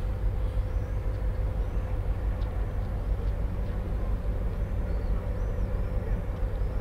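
Large ro-pax ferry's engines running as a steady low rumble with a constant hum. A few faint high bird chirps come in over the second half.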